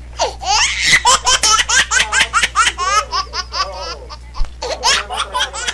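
Loud, high-pitched laughter: a rapid run of short ha-ha bursts with a brief pause about four seconds in.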